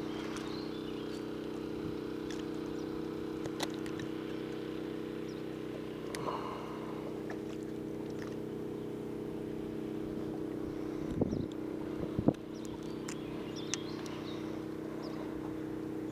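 Bow-mounted electric trolling motor running with a steady hum, with a few sharp knocks over it, the loudest two about eleven and twelve seconds in.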